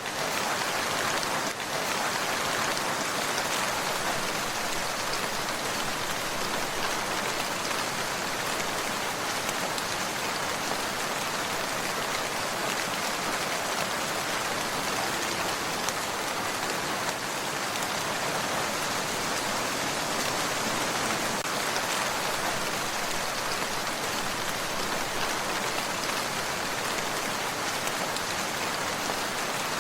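Steady rain falling, a dense even hiss of many drops hitting a surface.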